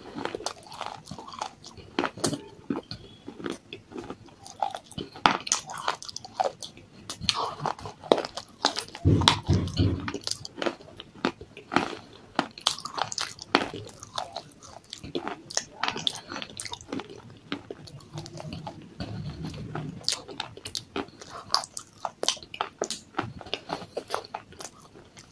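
Close-up chewing of pieces of baked clay pot coated in white paste: dense, irregular sharp crunches as the dry clay breaks between the teeth. A couple of dull low thuds come near the middle and about three-quarters in.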